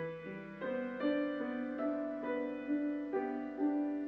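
Background piano music: a slow, gentle melody, a new note or chord about every half second.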